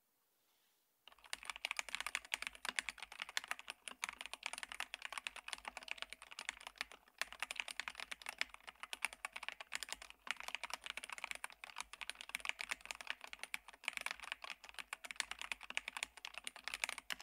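Fast, continuous typing on a DrunkDeer A75, a 75% plastic keyboard with magnetic switches: a steady run of key clacks starting about a second in.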